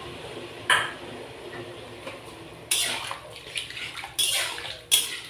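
Boiled elephant apple and its cooking water poured into a wok of frying taro stems, splashing, with a utensil clinking against the pan. There is a single clink about a second in, and the pouring and knocking get louder from about halfway through.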